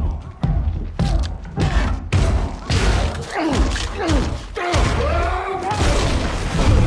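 Fight sound effects: a rapid series of heavy thuds and body slams against walls, with men grunting and straining, over a deep low rumble. It builds to the loudest crash near the end, as a body breaks through a plaster wall.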